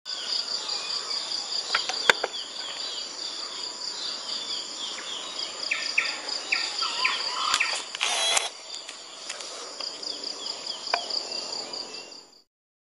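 A steady, pulsing insect chorus with birds chirping over it. There is a sharp click about two seconds in and a brief burst of noise about eight seconds in. The sound stops shortly before the end.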